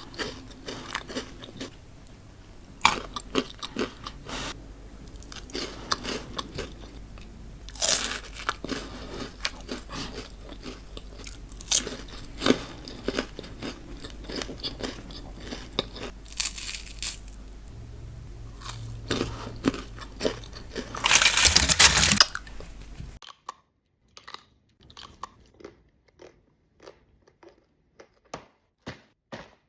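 Close-miked biting and chewing of Ferrero Rocher chocolates, the wafer shells and hazelnut pieces crunching in repeated bites. About 23 seconds in the sound drops away abruptly, leaving only faint clicks.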